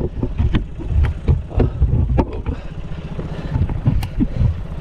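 Boat outboard motor idling with a steady pulsing hum, under a string of irregular thumps and short knocks.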